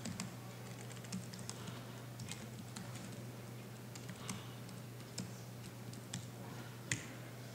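Laptop keyboard typing: scattered, irregular keystrokes, over a steady low hum.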